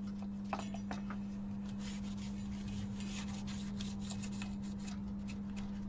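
Soft rubbing and scattered light clicks from the plastic parts of a TV remote control being handled and wiped, over a steady low hum.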